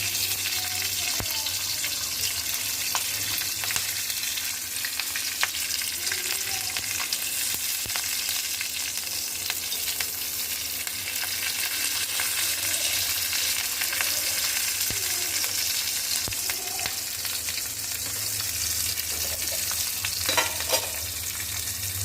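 Chillies frying in hot oil in a pan: a steady sizzle with scattered small pops, and a couple of sharper clatters near the end.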